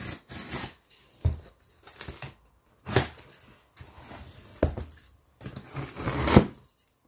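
A box cutter slicing the packing tape on a cardboard box, and the box being worked open: tape tearing, cardboard scraping, and several sharp knocks, the loudest a little past six seconds in.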